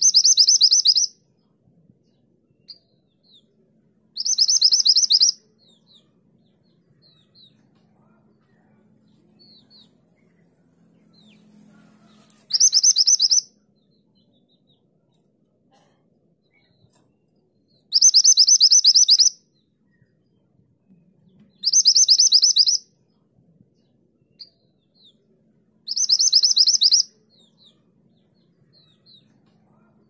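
Minivet (mantenan gunung) calling: six loud, high, rapidly trilled bursts of about a second each, a few seconds apart, with faint short chirps between them.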